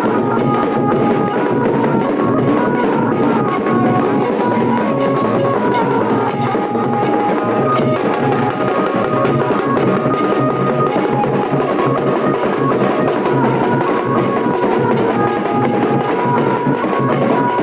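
Nashik-style dhol band playing: dense, continuous dhol drumming with a melody of short held notes above it.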